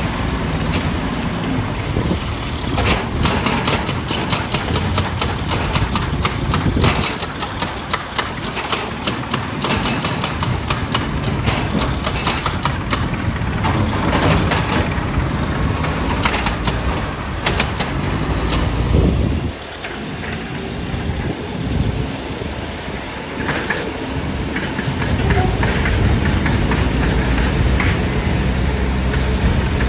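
Heavy stone-crushing plant machinery running, with rapid clattering and knocking of rock for most of the first two-thirds. About two-thirds of the way in, the clatter stops briefly and a steady engine carries on.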